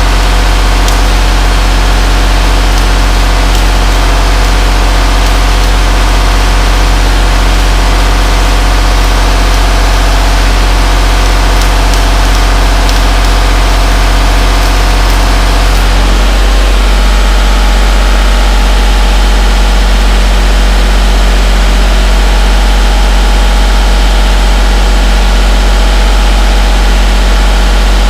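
A machine running steadily with a loud, even low hum; its tone shifts about sixteen seconds in, and faint crackling ticks sit over it before the shift.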